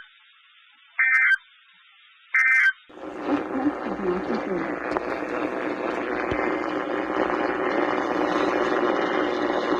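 Emergency Alert System end-of-message data bursts, short buzzy digital tones: the tail of one burst, then two more about a second and a half apart, closing the severe thunderstorm warning. About three seconds in, louder broadcast programme audio cuts in abruptly, a dense steady mix of sound that carries on.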